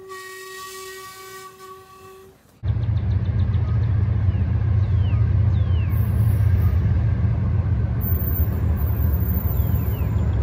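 A loud, steady low rumble begins abruptly a couple of seconds in, with birds chirping a few times over it. Before it comes a faint, pulsing high tone.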